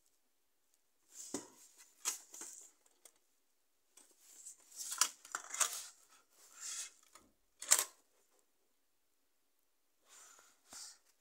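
Handling noise from a DVD case being turned over in the hands: scattered scrapes, rustles and light clicks, with one sharp click about three quarters of the way through.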